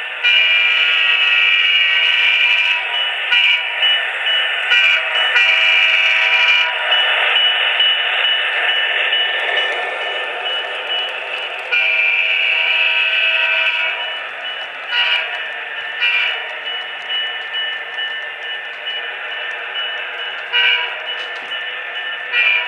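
Sound decoder of an HO-scale Proto 2000 Alco RS-27 model locomotive playing a diesel air horn through the model's small speaker, in a series of long and short blasts. A simulated diesel engine runs underneath between the blasts.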